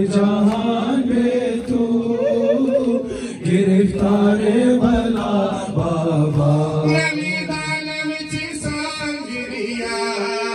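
A crowd of men chanting a Farsi noha, a Shia Muharram lament, in unison. From about seven seconds in, a single lead reciter's voice sings the verse, with the dull slaps of the mourners' matam beneath.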